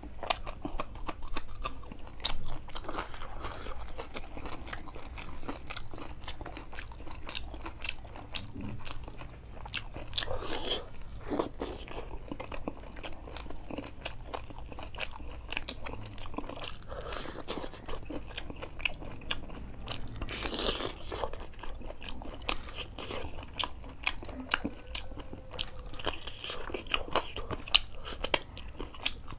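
Close-miked eating: a person biting and chewing chicken curry and raw green chilli, with many sharp crunches and clicks following one another.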